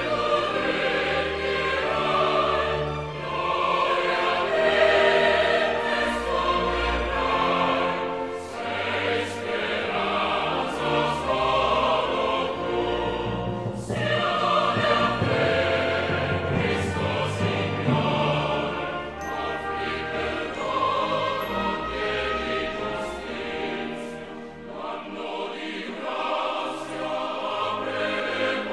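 Choral music with orchestral accompaniment: a choir singing a slow sacred piece.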